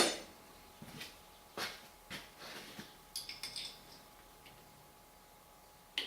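Light metal taps and clinks of an Allen key working a screw on a lathe cross-slide as it is nipped up slightly, with a few ringing clinks about three seconds in and a sharper knock near the end.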